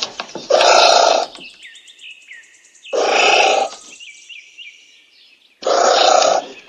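Anteater giving three harsh, raspy calls, each under a second long, about two and a half seconds apart. Faint bird chirps sound in the gaps between them.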